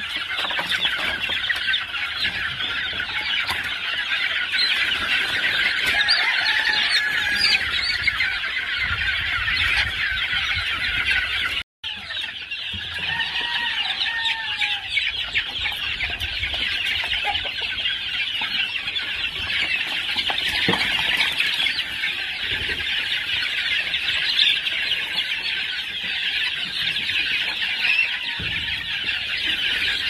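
A large flock of young gamefowl chickens clucking and calling all at once, in a dense, unbroken chorus.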